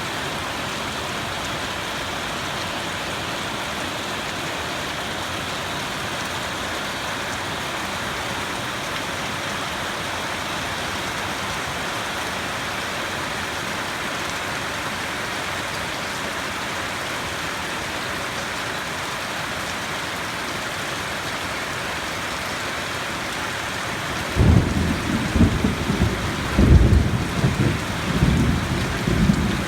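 Steady rain falling throughout. Near the end a rolling thunder rumble sets in, deep and uneven, with several louder surges.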